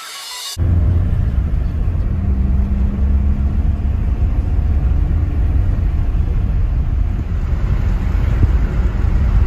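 Road noise inside a moving car's cabin, heard from the back seat: a steady low rumble of tyres and engine. It starts about half a second in, just after a short tail of music.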